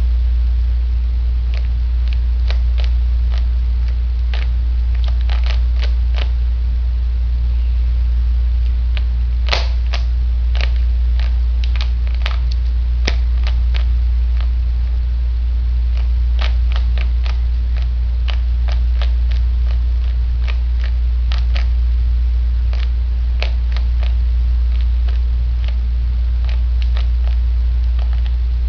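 A Rubik's Cube being turned by hand: irregular sharp plastic clicks as its layers are twisted, some in quick runs and some alone. A loud, steady low electrical hum runs underneath.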